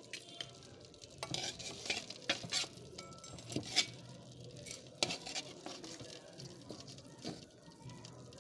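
Pangas fish steaks sizzling in hot oil in a pan, with a metal spatula scraping and clinking against the pan several times as the fried pieces are turned and lifted out.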